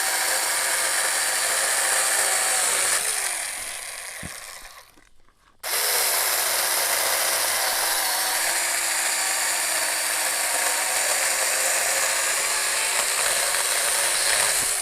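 A 24-volt ASJMREYE 4-inch cordless mini chainsaw cutting through a tree limb almost 3 inches thick. The motor and chain run steadily, then slow down and stop about three seconds in. About a second later they start again and run to near the end.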